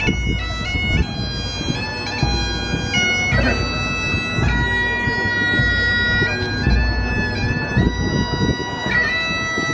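Bagpipes playing a tune in held notes that step from one pitch to the next, at a steady loud level.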